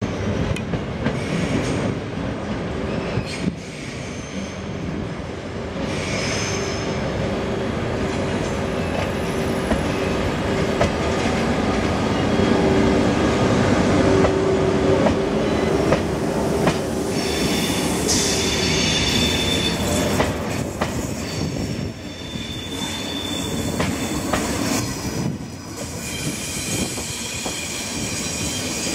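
Thalys TGV-PBKA high-speed train moving out through the station tracks past the listener. Its power car gives a steady tone as it comes by, and in the second half the wheels squeal high-pitched on the curves, with clicking over the rail joints and points.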